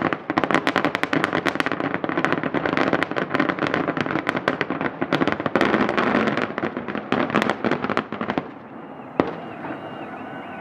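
Fireworks display: a dense barrage of rapid bangs and crackling that dies down about eight seconds in, followed by a single louder bang shortly after.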